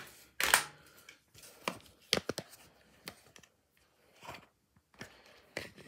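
Close-up handling noise as the phone camera is moved and set in place: a loud scraping rustle about half a second in, then scattered light taps and knocks against the microphone.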